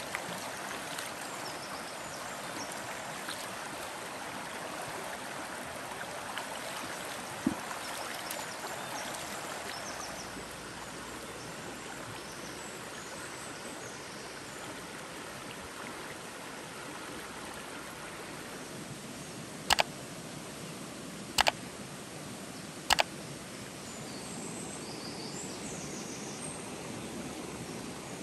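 Shallow rocky river flowing steadily over stones, a constant rushing that is louder for the first third and then eases. About two-thirds of the way through come three sharp clicks, roughly a second and a half apart, which are the loudest sounds.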